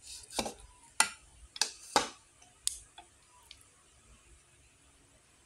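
Eating utensils clinking against a ceramic bowl of noodles: about seven sharp clicks, irregularly spaced, over the first three and a half seconds.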